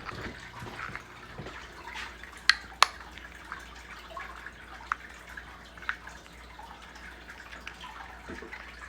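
Quiet room tone broken by a few sharp clicks or taps, two close together about two and a half seconds in and two fainter ones a few seconds later.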